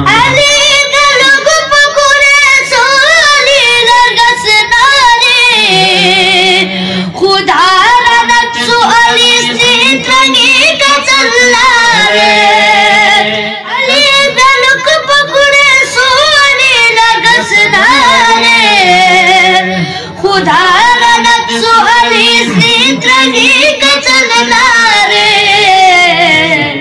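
A boy singing a Balti devotional qasida in a high, ornamented voice, in long phrases with short breaks between lines.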